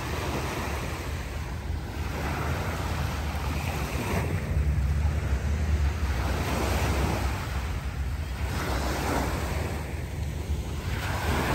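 Small waves breaking and washing up on a sandy beach, coming in surges every couple of seconds, with wind buffeting the microphone as a steady low rumble underneath.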